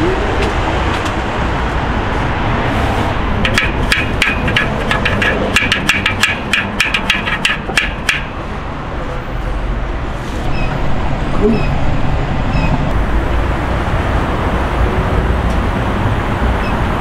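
A quick run of sharp metallic clinks, something like a couple of dozen over about four seconds, like steel racks or utensils knocking together, over a steady noisy rumble.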